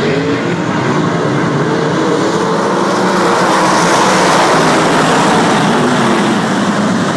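Race car engines running at speed, their pitch rising and falling as the cars go by; loudest about four seconds in.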